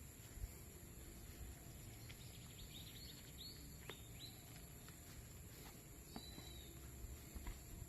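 Quiet background with faint high bird chirps, a quick run of them near the middle and a short call later, over a steady hiss and a few light clicks.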